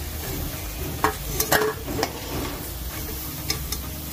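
Pakoras deep-frying in hot mustard oil in a kadhai, sizzling steadily, with a few short scrapes and taps of a metal spatula against the pan as the fried pakoras are lifted out.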